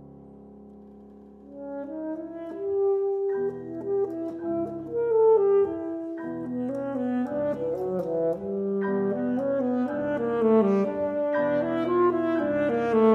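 Alto saxophone and grand piano playing live. A quiet piano chord dies away, then about a second and a half in the saxophone comes in and the two play a busy passage of quick notes that grows louder.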